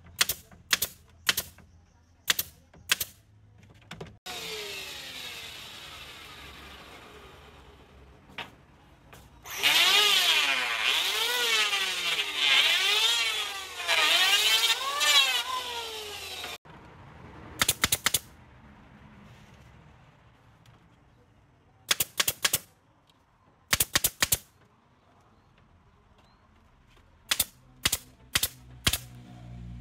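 Pneumatic nail gun firing into wooden bed slats in quick single shots. About ten seconds in, a bench-mounted circular saw cuts a wooden strip, its pitch dipping and recovering again and again for several seconds. The nail gun shots resume near the end, some in rapid runs.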